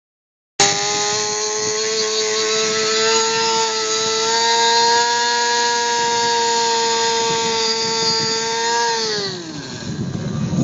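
A radio-controlled model airplane's motor running at a high, steady pitch, rising slightly about three seconds in. Near the end its pitch falls and it fades away.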